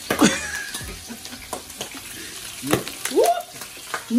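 Pieces of pigtail frying in hot oil in a stainless sauté pan: a steady sizzle broken by sharp spattering pops as they are turned with a metal spatula. Two short vocal exclamations, one just after the start and one about three seconds in, are the loudest moments.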